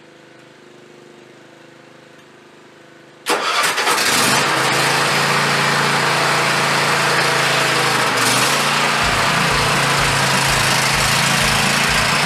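Petrol lawn mower engine catching about three seconds in, then running loud and steady.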